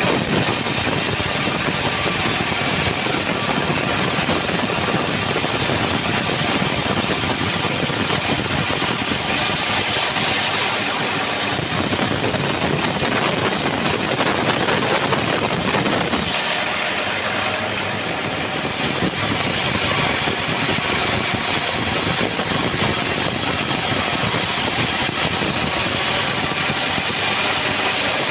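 Homemade band sawmill running steadily, its engine-driven band blade sawing a trembesi (rain tree) log. The sound shifts briefly in character for a few seconds near the middle.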